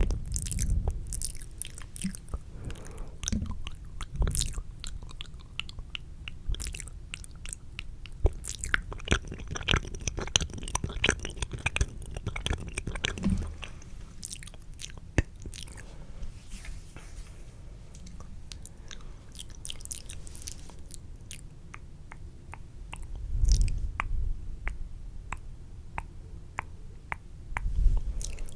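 Wet, spitty mouth sounds and licking close to a microphone: a dense run of sharp clicks and smacks, busiest in the middle, with a few low rumbling bumps against the mic near the start and twice near the end.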